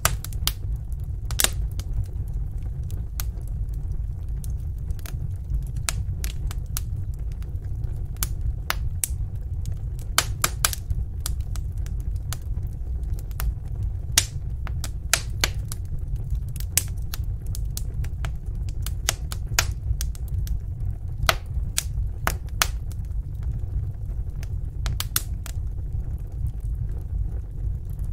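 Wood fire in a fireplace crackling: irregular sharp pops and snaps, some louder than others, over a steady low rumble.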